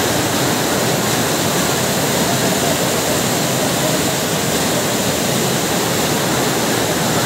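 Floodwater rushing down a stepped hill footpath like a waterfall: a loud, steady torrent.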